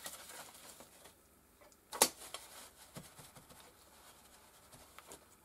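Crumpled wrapper rustling and crinkling as it is handled, with one sharp tap about two seconds in and lighter taps near three and five seconds.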